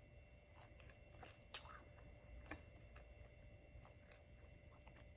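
Faint chewing and small mouth clicks from someone eating a croissant, a few scattered soft ticks against near silence.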